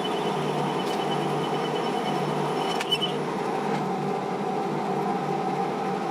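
Small metal lathe running steadily, with a faint high pulsing tone that stops just after a sharp click about halfway through.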